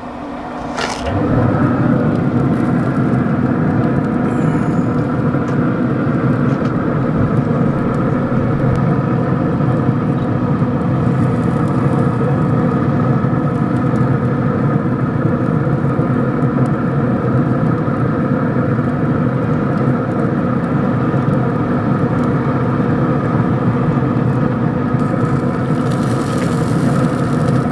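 A steady mechanical drone from a running machine, holding one even pitch, setting in about a second in just after a short click.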